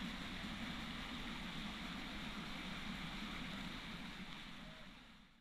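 Steady rush of a creek's running water, fading out near the end.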